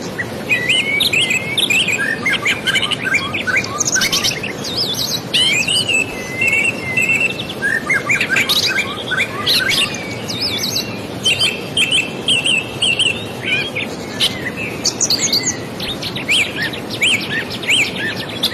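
Several birds chirping and trilling, with many quick overlapping calls, over a steady rushing noise.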